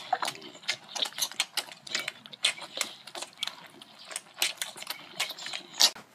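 A quick, irregular run of light clicks and taps, several a second.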